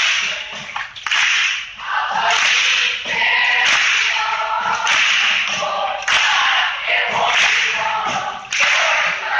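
Mixed choir singing a country-style song, accompanied by acoustic guitars, with sharp beats about once a second.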